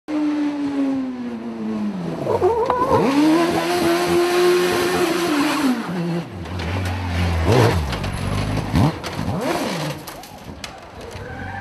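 Off-road buggy's engine running at high revs while its tyres spin and squeal in a smoky burnout, then dropping to a lower note with several short throttle blips.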